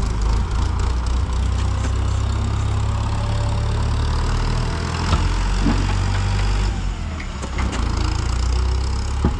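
Tractor diesel engine idling steadily, with a few sharp metallic knocks from a tire lever being worked around the rim of the rear tractor tire, one about five seconds in and one near the end.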